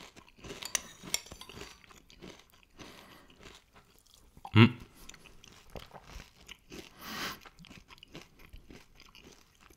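Crunchy muesli being chewed close to the microphone, with crisp crackling crunches in the first second or so that settle into quieter chewing. A brief, louder low thump comes about halfway through.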